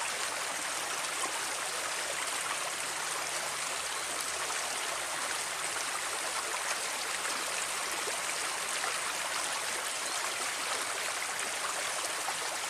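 Water running steadily along a narrow ditch, an even rushing and trickling flow.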